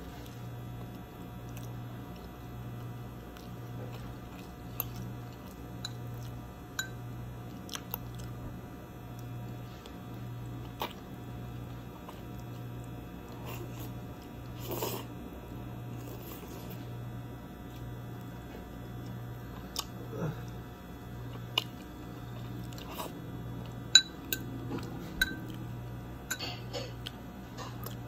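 Close-up eating sounds: chewing, with scattered sharp clicks of a metal fork against a plate, the loudest about 24 seconds in. Underneath is a low hum that pulses about once a second.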